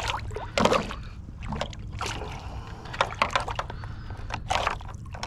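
A bluefish thrashing at the surface beside a kayak while held in a lip gripper: a run of irregular splashes and sloshing water.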